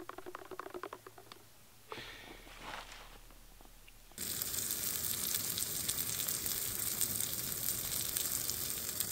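Quick light clicking for the first couple of seconds. Then, from about four seconds in, a steady crackling sizzle of food cooking in a cast-iron sandwich toaster over a camping gas burner.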